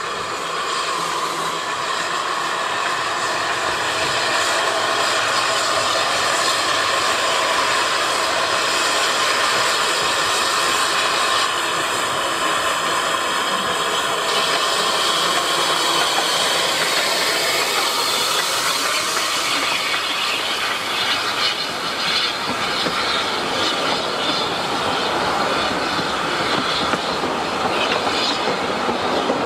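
Narrow-gauge steam locomotive running past close by, then its carriages rolling past with a steady clatter of wheels over the rail joints from about two-thirds of the way in.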